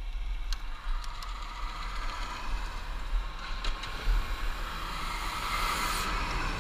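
A large goods truck approaching and passing close by, its engine and tyre noise swelling to a peak about six seconds in. A few sharp clicks sound in the first second and a half.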